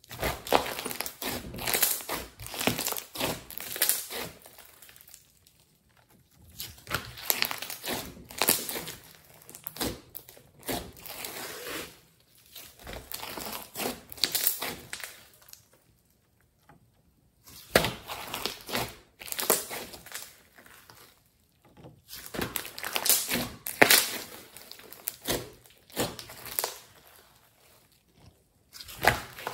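Hands squishing, folding and stretching thick glossy slime mixed with clay, giving dense crackling and clicking as the slime sticks, tears and presses out trapped air. It comes in about five runs of a few seconds, with brief silent gaps between them.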